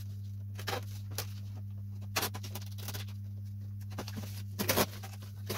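Plastic heat-shrink covering film on a balsa model glider fuselage crinkling and crackling in short, irregular bursts as it is peeled back and handled, over a steady low hum.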